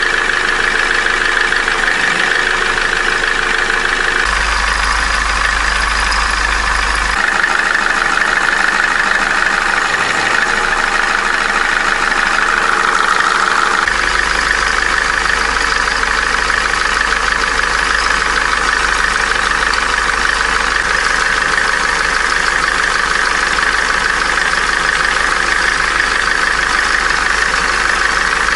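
Opel A14XER 1.4-litre four-cylinder petrol engine idling with a light knocking rattle. The mechanic traces this noise to the timing-chain tensioner area, typical of a stretched timing chain. The low hum under it changes abruptly a few times.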